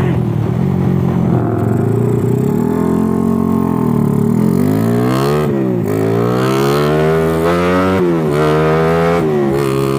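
Suzuki Satria F150's carbureted single-cylinder four-stroke engine being revved: one slow rise and fall, then quick throttle blips about halfway through and again near the end, dropping back to a steady idle in between. It picks up cleanly without coughing, freshly rejetted and with its ignition mapping set.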